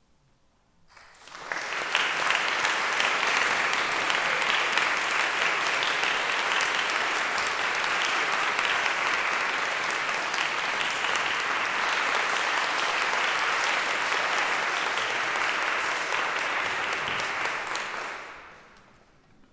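Audience applauding in a church sanctuary after a sung solo: a burst of clapping that builds up about a second in, holds steady, and dies away near the end.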